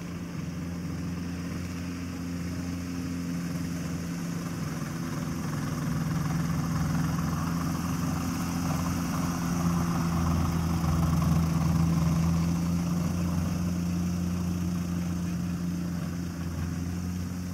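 Engine and propeller of a Harvard-style ultralight aircraft running steadily at taxi power as it rolls along the ground. It grows louder towards the middle as the plane comes past close by, then eases off slightly near the end.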